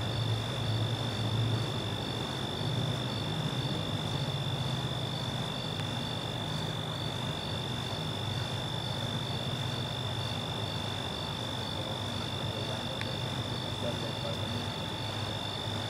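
Crickets or similar night insects calling steadily: one continuous high trill with an evenly repeating pulsed chirp above it, over a low steady hum.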